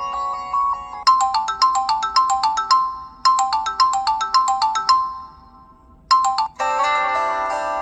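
Samsung Galaxy Light preloaded ringtones playing one after another: a quick run of bright, bell-like notes played twice and fading away, then a short snatch of another tone and a fuller tune with held chords starting near the end.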